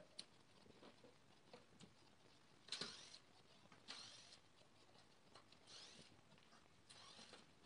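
Cordless drill driving screws into a wooden seat board, in about four short, faint bursts of half a second each, with light ticks and scrapes of handling between them.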